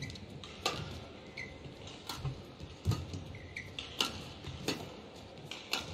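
Badminton rally: sharp racket strikes on the shuttlecock about once a second, mixed with players' footfalls and two short shoe squeaks on the court surface.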